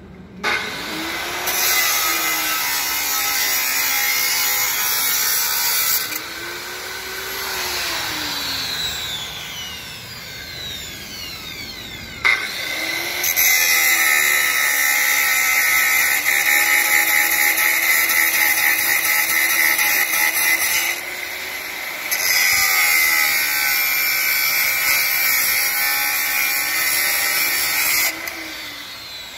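Handheld angle grinder with an abrasive cut-off disc cutting through steel rebar, a loud high-pitched grinding screech in three long cuts. Between the cuts the motor runs more quietly, and it winds down at the end.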